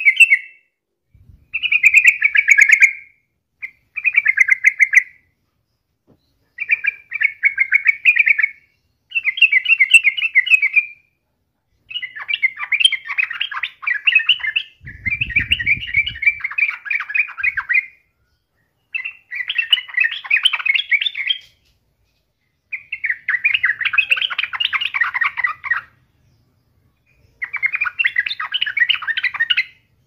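Yellow-vented bulbul (trucuk) singing: about ten quick, chattering song phrases, each one to three seconds long, separated by short pauses. A low thump comes about halfway through.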